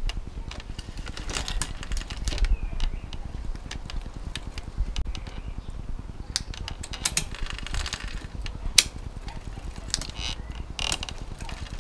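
Bicycle drivetrain of a Shimano 105 11-speed road bike, cranked by hand, with the chain running and clicking as it is shifted across an 11-40 cassette. Scattered sharp clicks come from the shifts, more of them in the second half. The shifting goes through cleanly.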